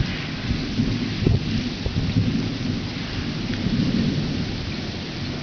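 Thunderstorm: steady rain falling, with a low, continuous rumble of thunder underneath and a few scattered sharp ticks of drops.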